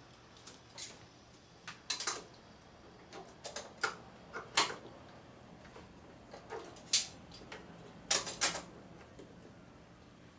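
Hand tools (pliers and a wrench) clinking against the steering-head hardware of a motorcycle's front end: irregular, sharp metallic clicks and clinks as a nut is gripped and turned.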